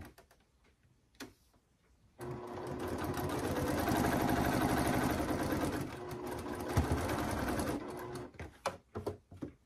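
Electric sewing machine stitching a seam through quilting fabric. It starts about two seconds in, eases off briefly midway, runs again and stops near the end, followed by a few small clicks.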